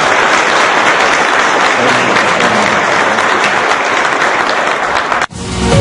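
Audience applauding steadily. It cuts off abruptly about five seconds in, and theme music starts.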